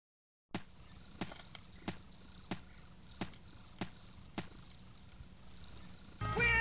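A cricket chirping in a steady rhythm, about one and a half chirps a second, starting half a second in after silence. Music comes in near the end.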